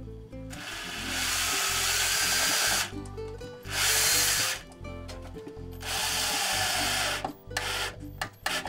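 Cordless drill driving a screw into the wooden hive box to hold a connecting clamp, in three runs: a long one starting about half a second in, a short one around four seconds, and another around six seconds. A few short knocks follow near the end, with background music underneath.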